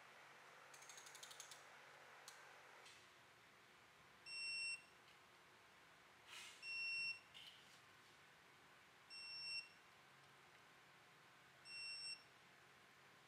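Digital torque wrench beeping four times, each a short high-pitched beep about half a second long and roughly two and a half seconds apart, as the connecting rod bolts are pulled to their torque and angle target. About a second in there is a brief run of quick ratchet clicks.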